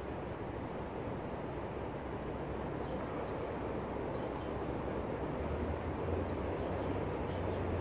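Street traffic noise as a steady wash, with a deeper vehicle rumble swelling from about five seconds in. Faint high chirps are scattered through it.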